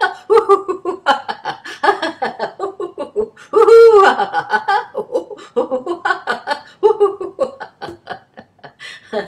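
A woman laughing deliberately in rapid ha-ha bursts: fast-paced laughter yoga laughter. About three and a half seconds in comes one longer, louder laugh.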